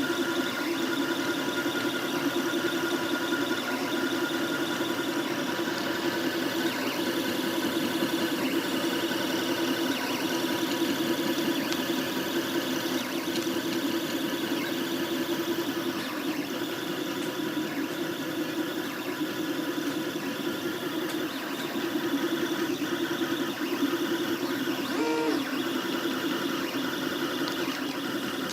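Stepper motors of a HyperCube CoreXY 3D printer whining steadily as the print head moves, with several high tones that flutter rapidly. About 25 s in there is a brief wavering change in pitch.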